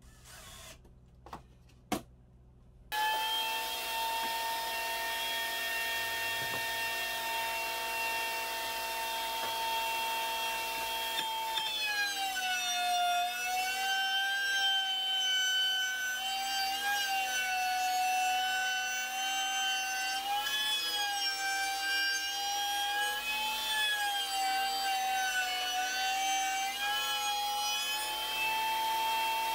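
A few brief knocks, then a table-mounted router starts and runs with a steady high whine. About a third of the way in the pitch drops and wavers as the bit cuts into the wooden frame being fed around it, loading the motor, and near the end it climbs back to its free-running pitch as the cut finishes.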